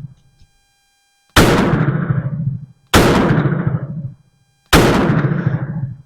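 Three shots from a Zastava M83 .357 double-action revolver, fired about a second and a half to two seconds apart. Each shot is followed by a long echo that dies away before the next.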